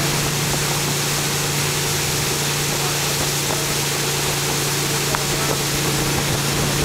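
Tow boat's engine running steadily at a constant pitch, with rushing water and wind noise over it.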